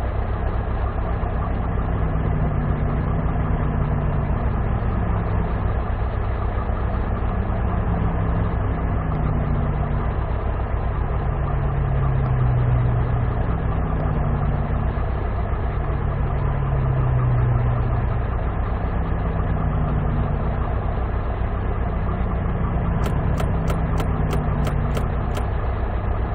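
Mercedes-Benz 1944 truck's turbodiesel engine idling, with a mesh screen fitted on the turbo intake, its hum swelling and fading every few seconds. Near the end comes a quick run of sharp clicks, about three a second.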